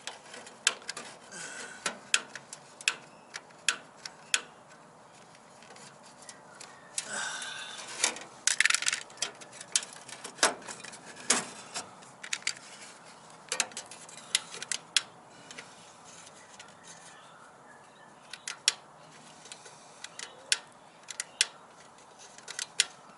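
Repeated sharp clicks at irregular intervals, some in quick pairs and clusters: an igniter sparking at the pilot of a gas water heater while the pilot is being lit.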